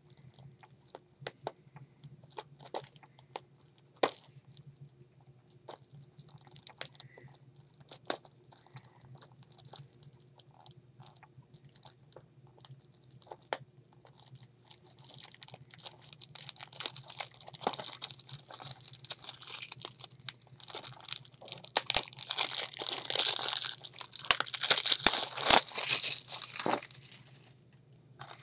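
Plastic shrink-wrap on a Blu-ray case being picked at with the fingers, giving scattered sharp clicks and scratches for about fifteen seconds. Then comes a long stretch of loud crinkling and tearing as the cellophane is peeled off and crumpled.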